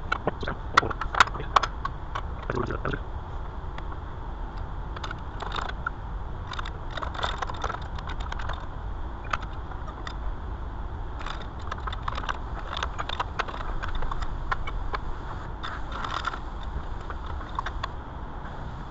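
Scattered light clicks, taps and rattles of metal parts and tools being handled, over a steady low hum.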